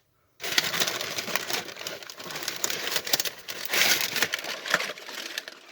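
Packing material in a shipping box crinkling and rustling as it is handled and pulled out, a dense crackle that starts sharply just after a moment of silence and dies down near the end.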